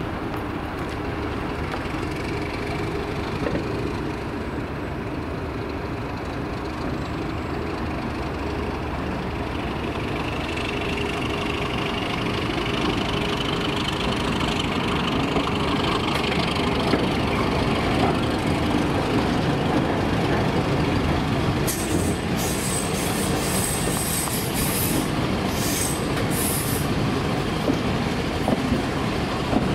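Diesel train running on the line, slowly growing louder, with a whine that rises in pitch midway and a few short high squeals about two-thirds of the way through.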